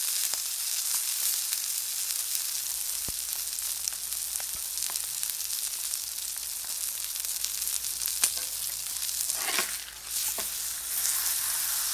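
Black Angus ribeye steak sizzling steadily on a hot flat steel griddle, with small crackles. Near the end a spatula scrapes under the steak and the sizzle dips briefly as it is lifted and turned, then comes back louder.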